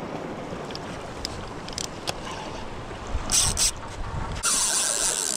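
Steady wind and water noise, then a fishing reel's drag buzzing as a hooked fish pulls line: two short spurts about three seconds in and a longer, louder run near the end.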